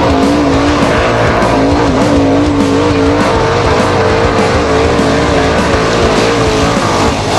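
Formula Offroad race car's engine held at high revs, its pitch wavering up and down continuously.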